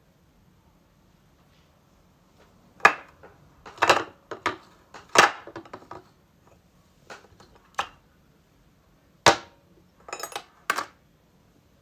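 Ceramic mug and plastic phone charger handled on a glass tabletop: a string of short, sharp knocks and clinks at irregular intervals, starting about three seconds in.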